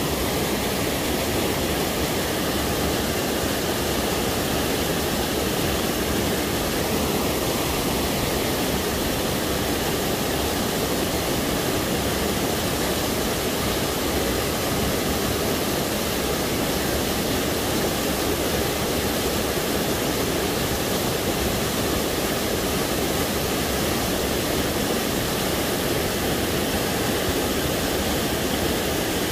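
Small waterfall cascading over boulders into a rocky pool: a loud, steady rush of water with no breaks.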